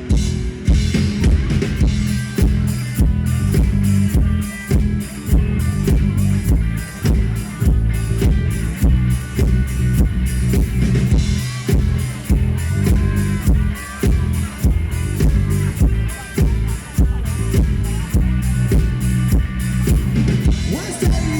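Live rock band playing an instrumental passage with no vocals: drum kit with a steady bass drum beat, bass and electric guitar.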